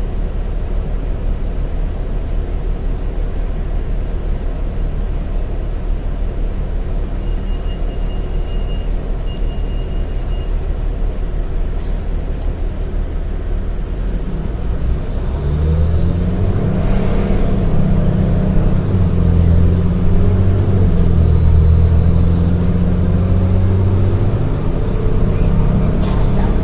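Cabin sound of a New Flyer D40LF city bus under way: its 8.9-litre Cummins ISL9 diesel and road noise as a steady low rumble. About halfway through, the engine pulls harder and gets louder, a deep drone with a high whine above it.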